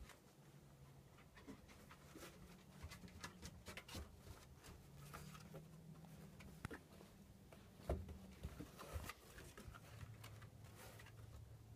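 Faint sounds of a puppy moving about on a rug and wooden deck boards: soft scratches and light ticks over a low hum, with a few louder knocks about two-thirds of the way through.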